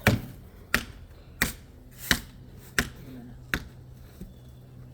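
Sharp tapping knocks repeating about once every 0.7 s, growing fainter near the end, over a steady low hum.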